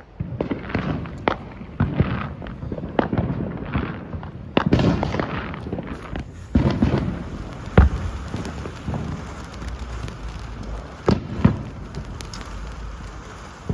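Freedom Fireworks LMBO, a small ground fountain, burning with a steady hissing spray and many sharp crackling pops, a few of them louder cracks.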